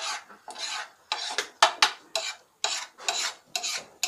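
Steel spatula scraping and turning thick pav bhaji against a flat griddle (tawa), in short scraping strokes about two or three a second.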